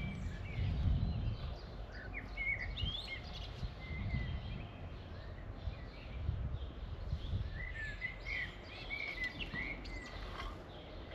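Garden rake drawn through loose soil in irregular strokes, heard as a low rumble every second or two, loudest at the start. Small birds chirp now and then, most busily near the end.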